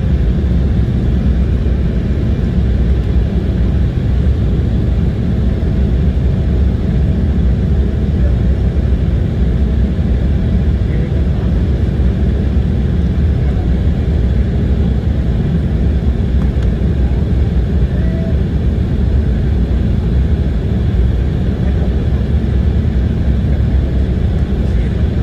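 Jet airliner cabin noise: a steady drone from the engines and the air rushing past the fuselage, strongest in the low range and unchanging in level.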